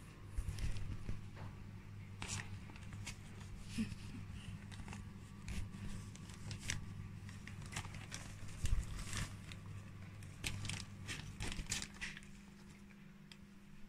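Fabric of a pop-up cat play house rustling and crinkling in irregular bursts as a kitten scrambles and paws around inside it.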